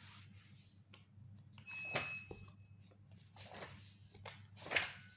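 Paper pages of a thick printed study book being flipped by hand: a few short rustling swishes, the loudest about two seconds in.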